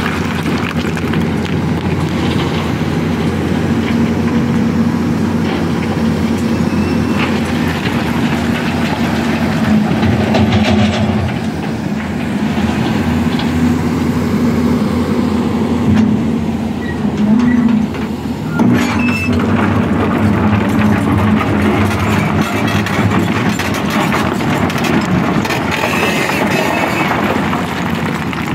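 Heavy diesel machinery running steadily at a stone crusher: a crawler excavator digging broken rock and the crusher working, with a constant engine drone and a few knocks of rock.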